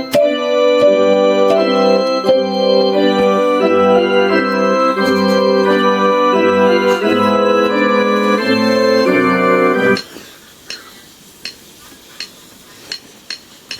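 Casio LK-280 electronic keyboard playing sustained, organ-like chords that stop abruptly about ten seconds in, followed by a few faint clicks.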